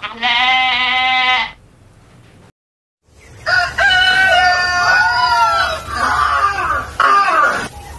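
A rooster crowing, with a dog beside it howling along, head raised, in long calls whose pitch arches up and down. Before them, about a second in, a different held high tone sounds briefly, and there is a short silence.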